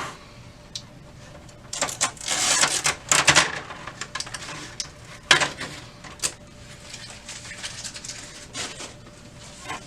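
Plastic paper tray of an HP OfficeJet Pro 7740 printer being pulled out and handled: scattered clicks and knocks of plastic parts, a stretch of rustling and scraping about two to three and a half seconds in, and one sharp knock about five seconds in.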